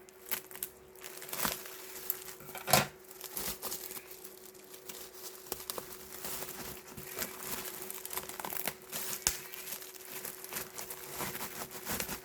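Packaging being crinkled and torn open by hand: irregular rustling with sharp snaps, the loudest a little under three seconds in, over a faint steady hum.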